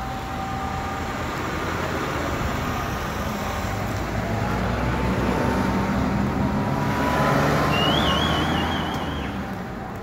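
Road traffic with a vehicle passing: a steady rush that builds to a peak about seven seconds in and then fades, with a faint rising whine under it. A short warbling whistle comes near the end.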